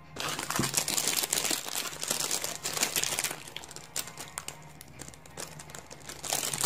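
Crinkling of a chewing-gum wrapper being unwrapped, dense for about the first three seconds and then lighter scattered crackles.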